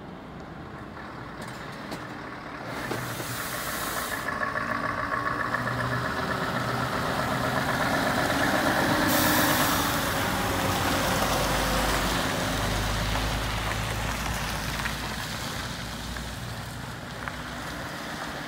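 Scania R520 truck's V8 diesel engine running as the tractor unit pulls a tipper trailer slowly past, growing louder as it approaches and fading as it drives away. A sudden hiss starts about nine seconds in, as it passes closest.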